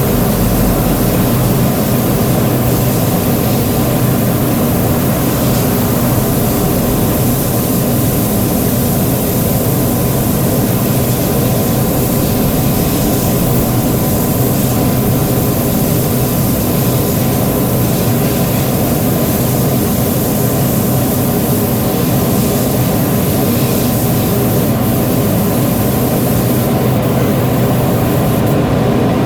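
A motor running steadily with a continuous drone, unchanged throughout.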